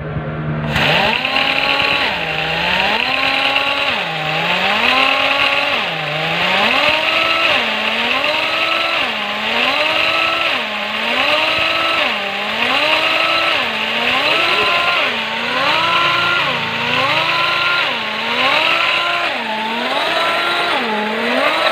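Air-powered drive on a modified 50-ton hydraulic bottle jack starting up about a second in and pumping steadily. Its running pitch sags and recovers about once a second as each pump stroke takes the load, over a steady hiss of air.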